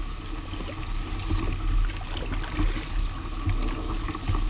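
Kayak hull sliding through dense lily pads, the leaves brushing and scraping along it with many small irregular clicks over a steady low rumble.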